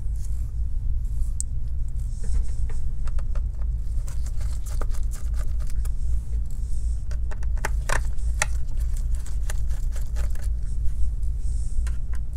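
Scattered small clicks and taps of a tiny Phillips screwdriver and its screws on the bottom cover of a Dell Inspiron 16 7620 laptop as the bottom screws are taken out, with a few sharper clicks a little past the middle. A steady low hum runs underneath.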